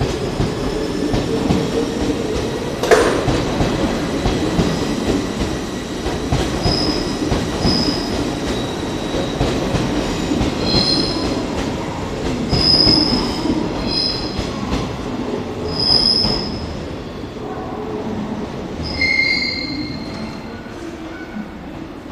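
JR 381 series electric train pulling out and running past, with a sharp clank about three seconds in and repeated high-pitched wheel squeal through the middle, fading away near the end.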